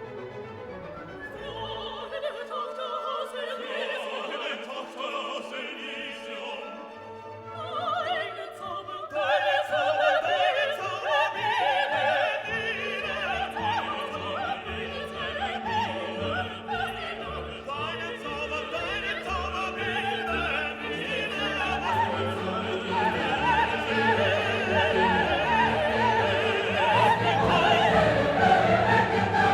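Background music: operatic singing with an orchestra, growing fuller and louder about nine seconds in.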